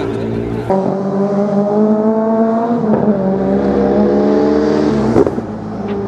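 Steyr Puch 650T rally car's small air-cooled flat-twin engine running hard. The revs climb, dip briefly about three seconds in, then drop with a sharp pop about five seconds in as the throttle comes off.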